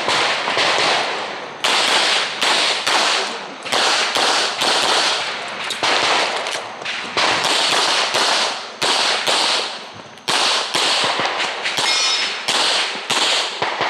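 Red-dot handgun fired rapidly during a practical-shooting stage, roughly two to three sharp cracks a second, each with a short echo tail. The cracks come in strings broken by brief pauses, and a short ringing tone sounds about twelve seconds in.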